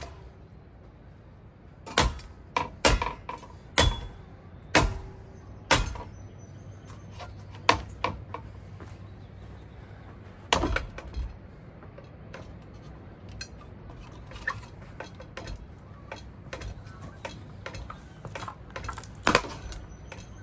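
A ceiling fan being smashed: a string of sharp knocks and clattering crashes, several in quick succession between about two and six seconds in, then single hits near eight, eleven and nineteen seconds.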